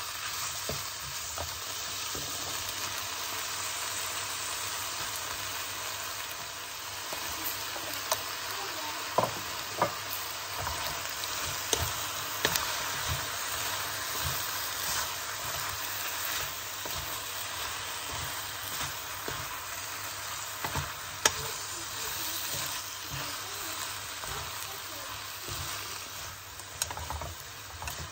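Squid, shrimp and vegetables stir-frying in a hot wok: steady sizzling, with a wooden spatula stirring and now and then knocking sharply against the pan.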